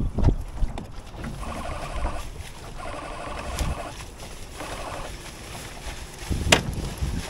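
Wind buffeting the microphone aboard a small sailing boat, with rustling and knocks from sails and lines being handled, and one sharp knock about six and a half seconds in.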